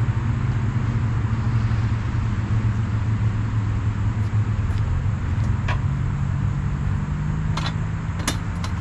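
A tow truck's engine idles steadily while the car sits on the wheel-lift. A few sharp metal clanks come near the end as a wheel dolly is set at the car's front wheel.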